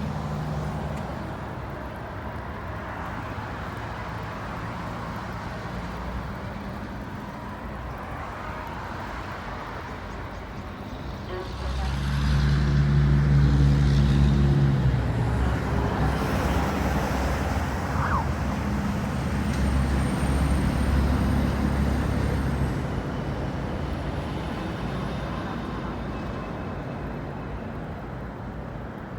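Motor vehicle engines running in road traffic, a steady hum that swells loudest about twelve seconds in as a vehicle comes close, swells again near twenty seconds, then eases off.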